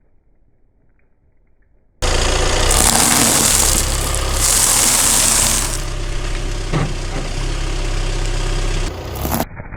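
Car engine running close to the microphone. It comes in suddenly about two seconds in and cuts off abruptly near the end.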